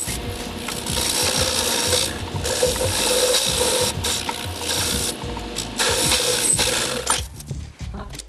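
Homemade concrete-bed metal lathe turning down an aluminum plate: the tool cutting into the spinning metal over the running spindle, a steady grinding noise with a constant hum in it. It stops about seven seconds in.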